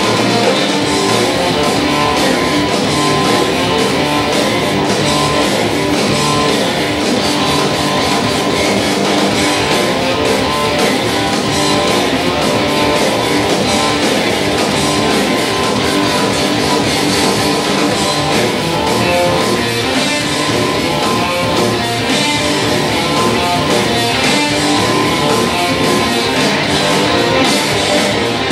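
Rock music with guitar, continuous and steady.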